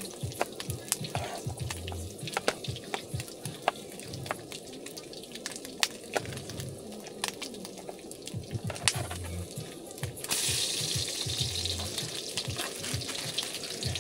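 Background music with a steady bass line and scattered light clicks and clatters. About ten seconds in, a loud steady frying sizzle starts suddenly, like food going into hot oil in a pan.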